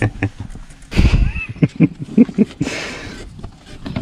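A horse right beside the microphone, taking a run of quick hoof steps about halfway through, at about five a second.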